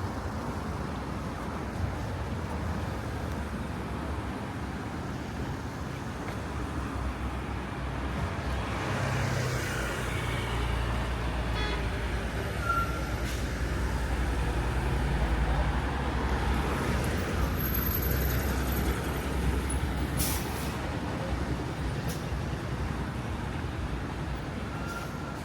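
Heavy road vehicle's engine running with a low rumble that swells and fades, and a short hiss about twenty seconds in like an air brake releasing.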